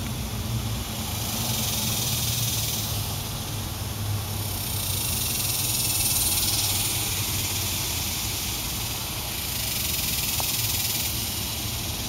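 Chorus of cicadas singing, a steady high-pitched hiss that swells and fades every few seconds.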